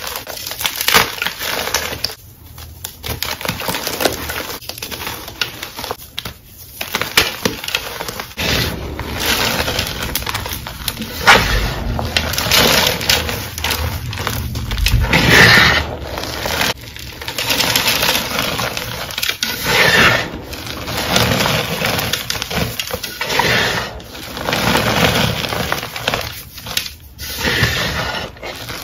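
Hands crushing and crumbling chalk blocks and powder, an irregular crunching and crackling with louder squeezes now and then.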